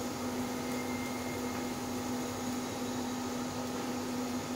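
Steady hiss of a gas stove burner and a lidded pan of chicken curry simmering, with a steady low hum underneath.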